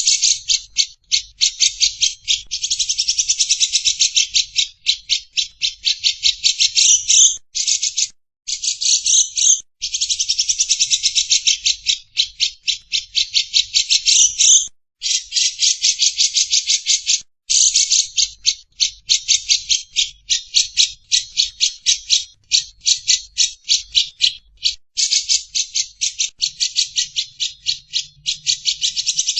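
Lovebird's long ngekek chatter: fast runs of harsh, rattling chirps, several a second, broken by a few brief pauses.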